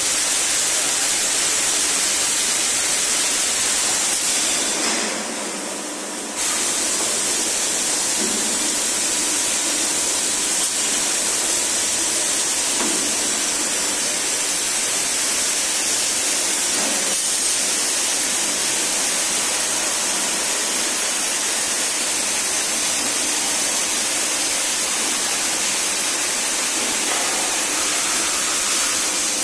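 Running 1250-ton cold chamber die casting machine: a steady hiss over a faint low hum. The hiss drops away for a moment around five seconds in and comes back abruptly, and a few faint knocks sound later on.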